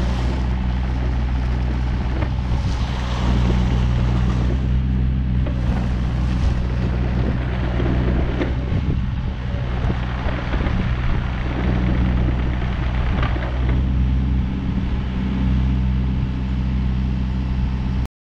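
Volvo ECR50 mini-excavator's diesel engine running steadily under hydraulic load while the machine slews and works its boom and arm, with a few brief knocks.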